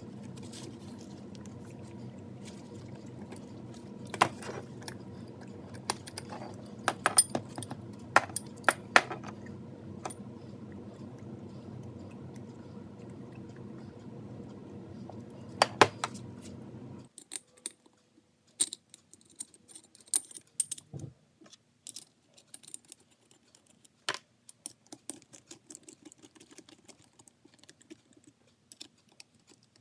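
Small metal parts clinking and tapping, with sharp clicks over a steady hum that stops abruptly about halfway through, then scattered light clinks and taps.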